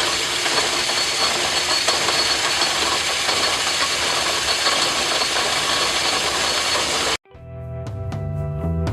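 Metal lathe running at slow speed while a squeeze-type knurling tool rolls a knurl into a steel bar: a steady mechanical running noise with a faint high whine. It cuts off abruptly about seven seconds in, and background music with drums fades in.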